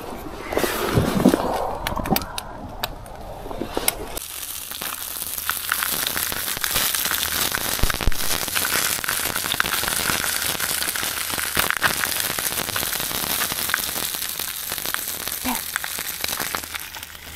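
Wood campfire crackling and popping over a steady hiss, from about four seconds in. Before that comes a brief wavering whine.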